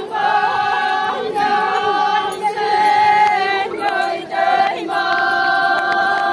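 A chorus of Konyak Naga women singing a folk dance song together, in long held notes. The phrases last a second or so each, with brief breaks between them.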